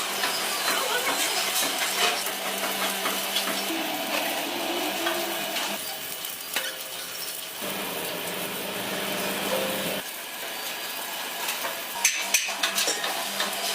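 Metalworking factory noise: a steady machine hum under a hiss, with scattered metallic clinks and knocks. The sound changes abruptly several times.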